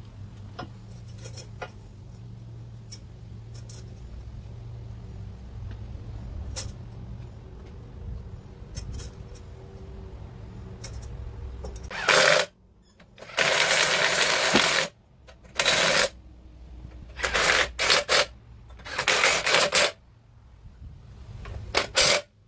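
Light metal clinks and handling of parts, then a red cordless impact driver run in about six short bursts, driving home the bolts that fasten the hub assembly back onto the Land Rover Defender axle.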